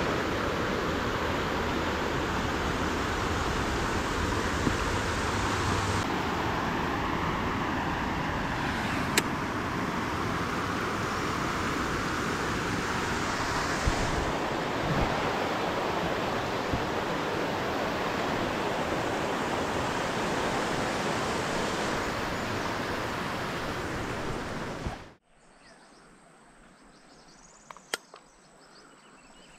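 Steady loud rushing of river water flowing over rapids, which cuts off about 25 seconds in to a much quieter outdoor background with a couple of sharp clicks near the end.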